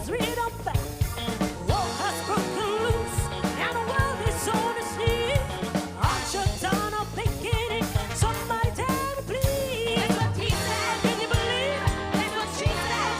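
Live funk and soul band playing: a steady drum-kit groove over bass, with a wavering lead melody line on top.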